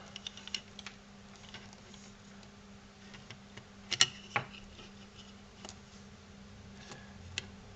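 Faint handling noises as the headphone cable is pulled through the ear cup and the plastic cup parts are handled, with scattered small clicks and taps, the sharpest about halfway through.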